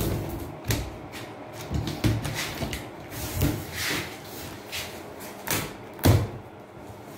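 Knife slicing through packing tape on a large cardboard box, with the cardboard flaps scraping and flexing as they are pulled open, in short irregular strokes. A sharp knock about six seconds in.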